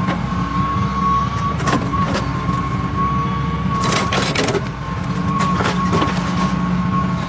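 Machinery running steadily with a low hum and a high, steady whine, and several sharp clicks or clanks, a quick cluster of them about four seconds in.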